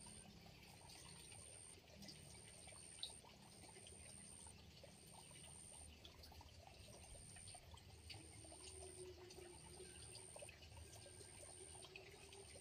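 Faint trickling water, with a high-pitched insect call pulsing about once a second.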